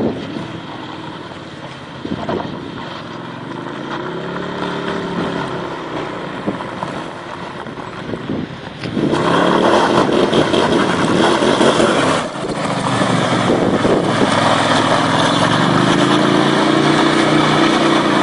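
Turbocharged Arctic Cat Wildcat UTV engine running as the machine is driven, its pitch rising and falling with the throttle. About nine seconds in it turns suddenly much louder under hard acceleration, dips briefly around twelve seconds, then climbs and falls again.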